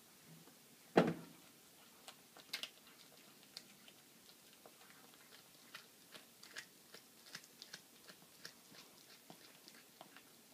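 A domestic cat chewing on a baby rabbit, with irregular sharp crunches of small bones. One loud thump about a second in is the loudest sound.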